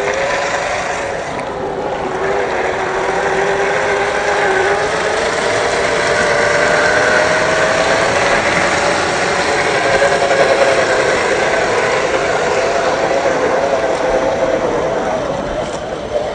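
Axial SCX10 III RC crawler's electric motor and gearbox running under throttle, a steady whine that wavers in pitch and rises somewhat over the first several seconds, over a rough hiss.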